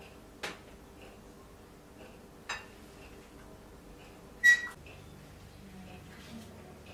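Glass tea cups set down on a tray: three light clinks about two seconds apart. The last, about four and a half seconds in, is the loudest and rings briefly.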